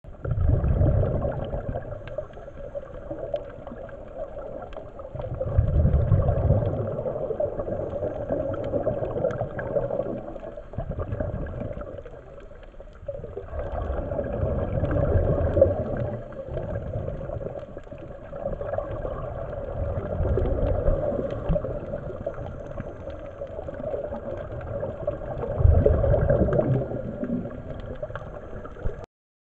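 Scuba divers breathing through regulators, heard underwater: low rumbling bursts of exhaled bubbles about every five to seven seconds over a steady underwater hum.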